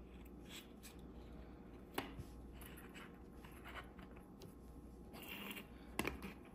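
Paper and card model parts handled and pressed together: soft rustling and scraping of card, with a sharp tap about two seconds in and another near the end.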